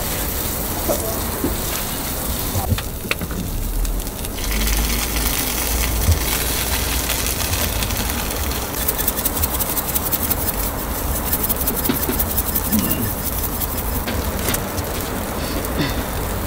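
Flat-top griddle sizzling under a row of Korean street toast (egg-and-cabbage patties on bread), a steady hiss with scattered light clicks and knocks.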